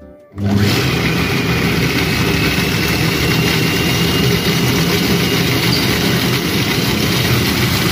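Silvercrest Monsieur Cuisine Connect food processor's motor and blade running at speed 7, blending a thick paste of ground hazelnuts, cocoa, erythritol and oil. It starts abruptly about half a second in, then runs loud and steady with a low hum.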